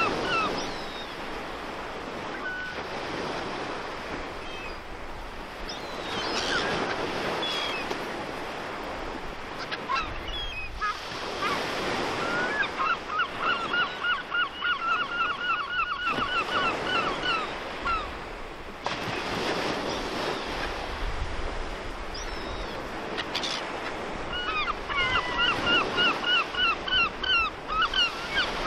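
Gulls calling over the steady wash of surf. The calls come in fast runs of repeated notes, several a second, starting about twelve seconds in and again near the end, with scattered single calls between.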